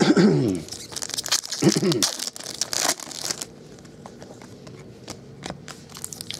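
Foil card-pack wrappers and chrome trading cards rustling and crinkling as they are handled and flipped through, loudest over the first three and a half seconds, then a softer rustle with light clicks. A short murmured voice sounds near the start and again about two seconds in.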